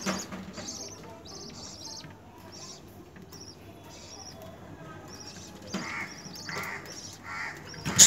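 Budgerigars chirping: a steady run of short, high chirps, with a few fuller, lower calls near the end and a sharp knock right at the close.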